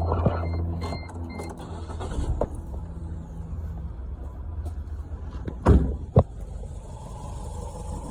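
1997 Geo Tracker's 1.6-litre four-cylinder engine idling steadily with the number 2 fuel injector unplugged, running on three cylinders; it idles better this way because that injector is stuck open and floods the cylinder. Two loud knocks sound close together about two-thirds of the way through.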